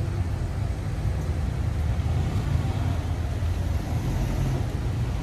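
Street traffic: cars idling and creeping along in a queue, a steady low rumble.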